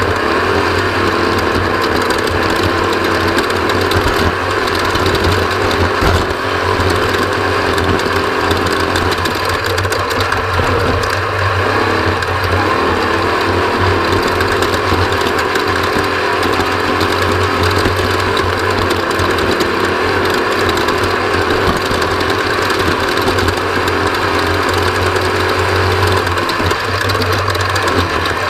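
Off-road race vehicle's engine running steadily at speed, heard from on board, with constant mechanical rattling over the drone.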